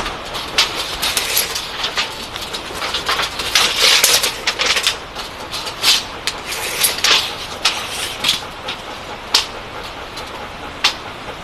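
Rain falling steadily, a continuous hiss with many sharp, irregular ticks of drops striking hard surfaces.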